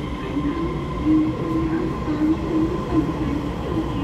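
TRA EMU3000 electric multiple unit pulling out along an underground station platform. It gives a steady running rumble with a wavering hum and a steady high whine over it.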